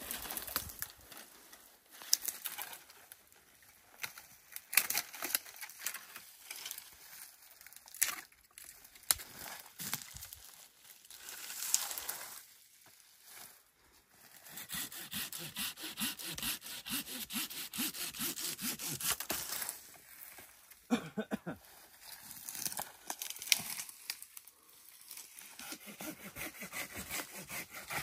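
Hand pruning saw cutting through pine branches, with a long run of quick back-and-forth strokes about halfway through and shorter runs later. Scattered cracks and rustles of branches being handled come before it.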